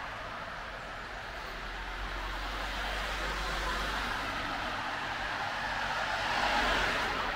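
A car passing along the street, its road noise swelling gradually to a peak near the end, then starting to fade.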